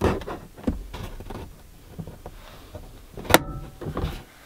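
A plastic trim tool prying at a Toyota RAV4 rear dome light's plastic lens: small clicks and taps as it works into the slots, then one sharp plastic snap about three seconds in as the lens pops off its retaining tabs, followed by a few lighter clicks.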